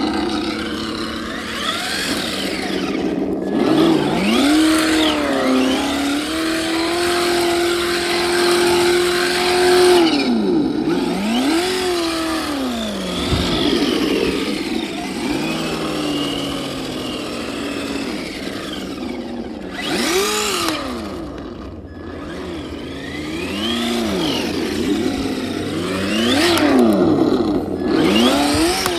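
Simulated V8 engine with turbo sound from an add-on sound speaker on a Traxxas Mustang 4Tec 2.0 RC car, revving up and down again and again as the car drives. The revs are held steady for about four seconds about a quarter of the way in, and a higher whine rises and falls along with them.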